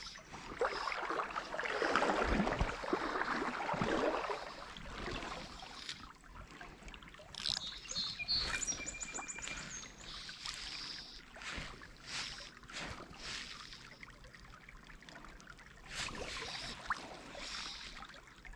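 Small creek's water running and splashing, loudest about two to four seconds in, with scattered sharp clicks. A bird sings a short run of high repeated notes about eight seconds in.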